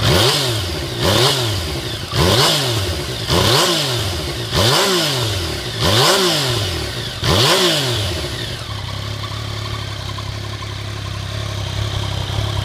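Yamaha FZ-09's inline three-cylinder engine revved in seven quick blips, about one a second, each rising and falling in pitch. It then settles back to a steady idle for the last few seconds.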